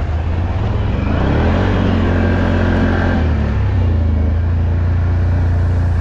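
ATV engine running close by, picking up in pitch about a second in as it is throttled up, then easing back to a steady run.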